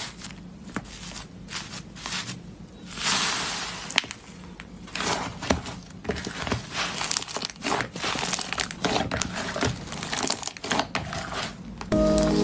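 Slime being squeezed and stretched by hand, giving irregular crackling and crinkling sounds that grow denser partway through. Music starts just before the end.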